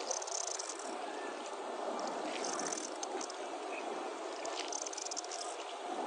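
Steady rush of water from a shallow river riffle, a small whitewater chute, heard from a drifting raft.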